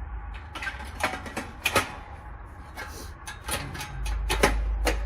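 Dryer parts being handled and fitted back together: a string of about a dozen sharp clicks and light metallic knocks, irregularly spaced.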